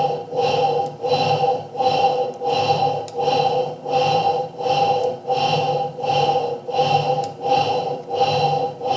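Electrolux 6 kg Turbo Limpeza top-load washing machine agitating, its motor driving the agitator back and forth about twice a second with a steady whine in each stroke. The noise is worn motor bearings, in the technician's judgement.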